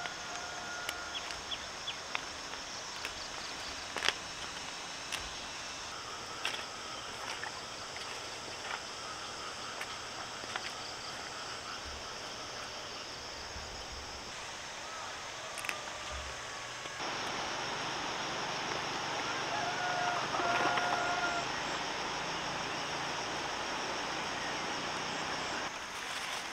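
Outdoor rural ambience: a steady high-pitched drone with a few short bird calls and scattered light clicks and knocks. The background gets louder about two-thirds of the way through.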